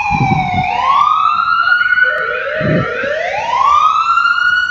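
Ambulance siren on a slow wail. The pitch falls, then rises and holds high, and a second rising sweep overlaps from about halfway through.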